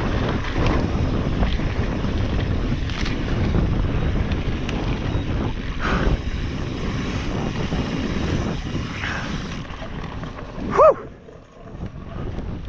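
Wind buffeting the microphone and mountain-bike tyres rumbling and rattling over a dry, rocky dirt trail at speed. About eleven seconds in there is one short, loud squeal whose pitch rises and falls.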